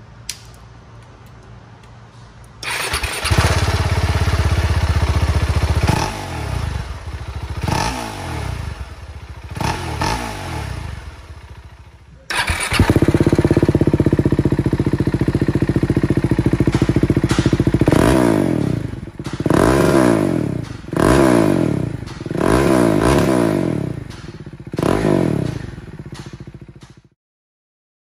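Husqvarna Vitpilen 701 single-cylinder engine idling and being revved in short throttle blips, first through the factory exhaust and then, after a cut, through a LeoVince LV-10 stainless slip-on. In the first part a faint hum gives way to the running engine a few seconds in, with three revs that rise and fall. In the second part it idles loudly, then gives a quick string of about six revs.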